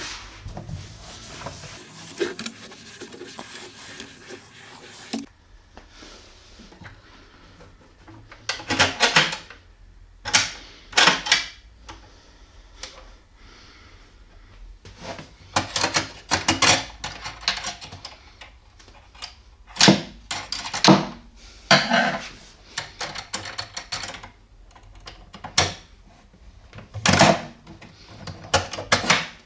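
Repeated knocks, clicks and short scrapes from a wooden drawer and its hardware being worked on by hand, at irregular intervals, after a steady hiss that stops about five seconds in.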